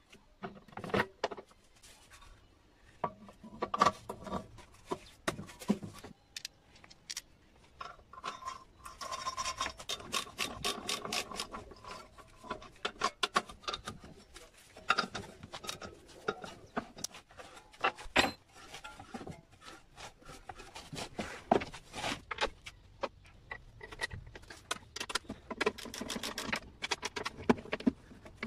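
Hand-tool work on a lawn mower's blade assembly: metal parts knocking and clicking, with runs of rapid rasping clicks as the blade bolts are tightened.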